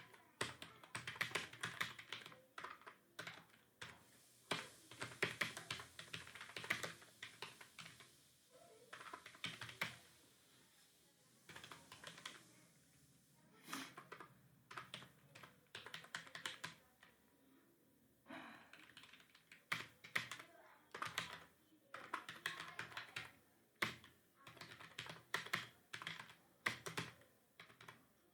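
Computer keyboard being typed on in runs of quick keystrokes, with short pauses between the runs.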